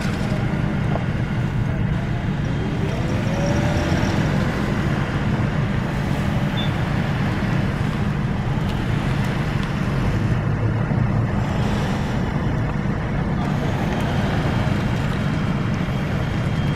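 Steady low rumble of vehicle engines and road traffic.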